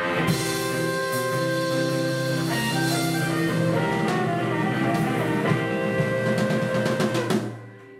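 Live blues band holding the final chord of a song: guitar, double bass and harmonica sustain one chord over a wash of drums. All of it stops together near the end.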